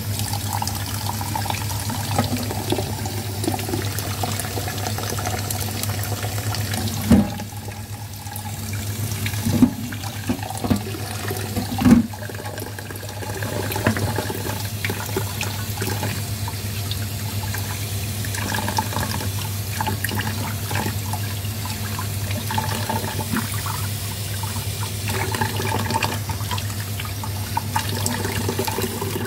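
Kitchen tap running into a stainless steel saucepan in a stainless sink, water splashing over pork spare ribs as they are rinsed. A few sharp knocks stand out about seven to twelve seconds in.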